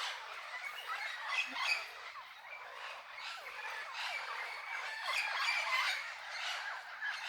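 A flock of parrots and parakeets squawking and chattering, many harsh calls overlapping without pause. The flock is gathering to feed and roost in a fruiting jamelão (Java plum) tree.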